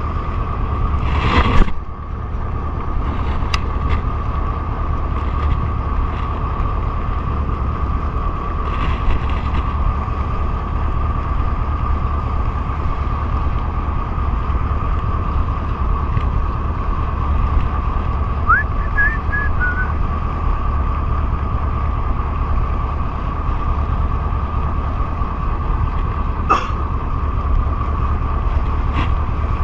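Motorboat engine running steadily under way: a low rumble with a steady whine above it, and wind on the microphone. A single loud bump comes about a second and a half in.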